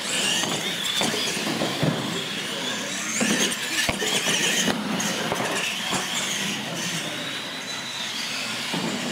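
Radio-controlled monster trucks racing: motors and drivetrain gears whine high, rising and falling in pitch with the throttle, with a few sharp knocks as the trucks bounce and land on the concrete floor.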